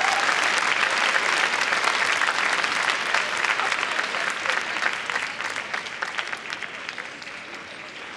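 Large arena audience applauding, a dense spread of clapping that dies away over the last few seconds.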